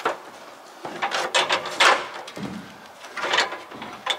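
Four or five short scraping, sliding sounds of metal and building parts being handled, such as an aluminium stepladder being shifted against the door frame.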